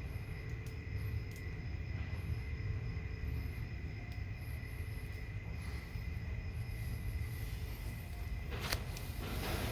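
Steady high chirring of night insects over a low background rumble, with a sharp click and a brief rustle near the end.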